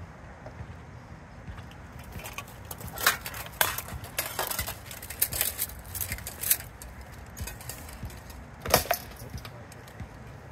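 Armoured sparring: weapons knocking against a wooden shield and clanking on plate armour. There is a flurry of sharp hits from about three to seven seconds in, then one last loud strike near nine seconds.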